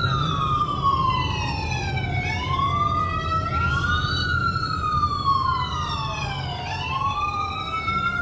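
Emergency siren wailing, its pitch rising and falling slowly, about four seconds per cycle, over the low hum of a car's cabin on the move.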